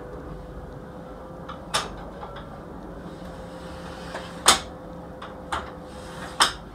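Hard objects knocking and clacking in a workshop, four sharp knocks with the loudest about four and a half seconds in, over a faint steady hum.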